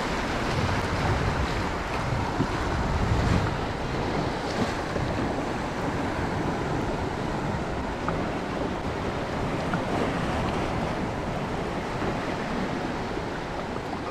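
Wind buffeting the microphone over water washing and lapping, gusting heavier in the first few seconds and then steady.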